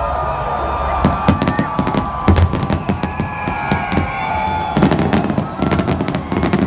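Aerial fireworks going off: a rapid run of sharp bangs and crackles starting about a second in, thickest again near the end.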